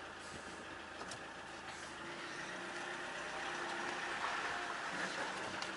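SsangYong diesel SUV engine running, heard faintly from inside the cabin and slowly getting a little louder over the few seconds.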